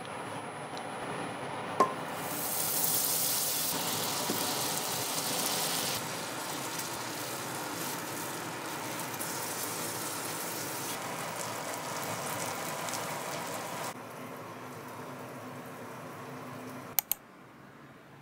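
Food frying in oil in a pan, a steady sizzling hiss that jumps in level at several cuts between shots. There are a couple of sharp clicks, one about two seconds in and a pair near the end.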